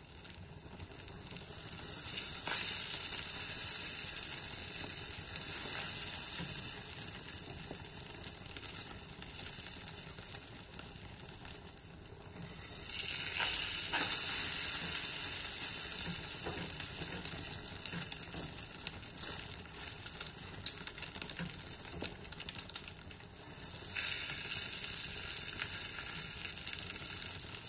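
Beaten eggs sizzling in olive oil in a non-stick frying pan as an omelette cooks. The sizzle gets louder three times: a few seconds in, about halfway, and near the end.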